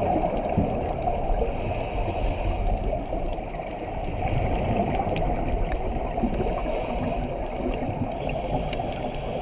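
Underwater sound of scuba diving: a steady low rush of water, with two short hissing bursts about five seconds apart from a diver's regulator breathing and bubbles.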